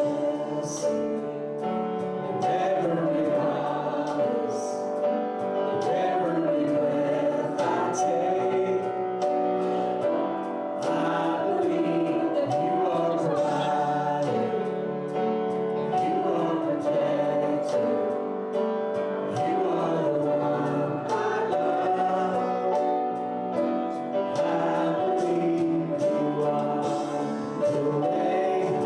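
Church congregation and worship leaders singing together with instrumental accompaniment and a steady beat.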